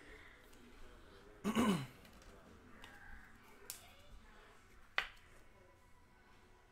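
A man makes one short vocal sound with his mouth closed, then two sharp clicks a little over a second apart, over faint handling noise from trading cards and packs being sorted at a table.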